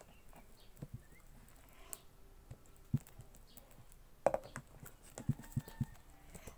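Hands working sticky glue slime on a tabletop: scattered light taps and clicks, a sharper cluster of knocks about four seconds in, then three quick knocks a little later.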